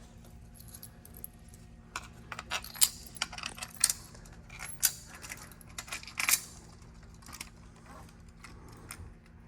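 Metal 1/4-20 mounting screws clinking and rattling against each other and the backing plate as they are handled and fitted from below, a quick run of sharp clicks for about four seconds starting two seconds in.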